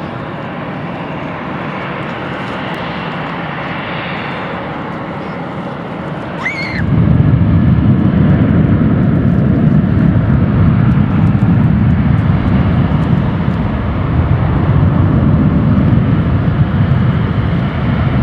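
Airbus A319 jet engines at takeoff thrust, steady jet noise that about seven seconds in suddenly becomes much louder with a deep rumble, which then holds.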